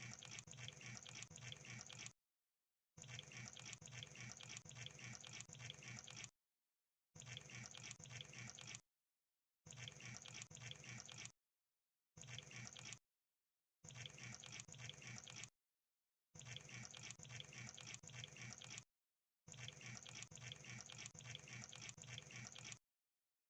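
Crab sound effect: faint bursts of rapid, wet-sounding crackling clicks, each lasting one to three seconds. There are about eight bursts, separated by short dead-silent gaps.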